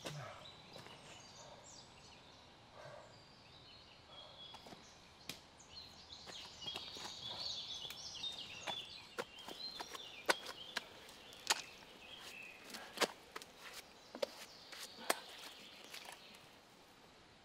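Quiet forest ambience: small birds chirping, with sharp irregular clicks about once a second through the second half.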